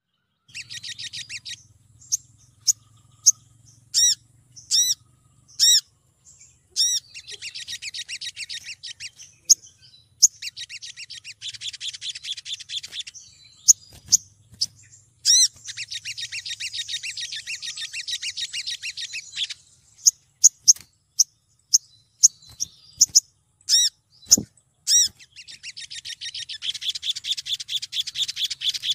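Female olive-backed sunbird calling to attract males: runs of rapid, high-pitched trilled notes lasting a second to several seconds, alternating with single sharp chip notes.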